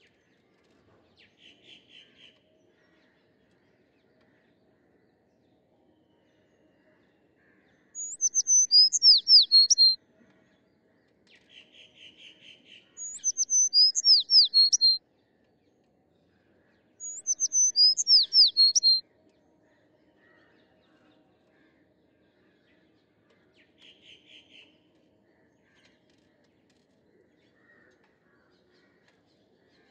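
Songbird singing: a loud phrase of quick, high, down-slurred whistled notes, given three times a few seconds apart, with quieter fast trills near the start, between the phrases and later on.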